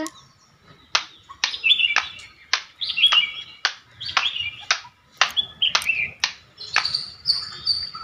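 Small songbirds chirping as a background sound effect: a run of short, sharp chirps about two a second, starting about a second in, with a few warbled notes between them.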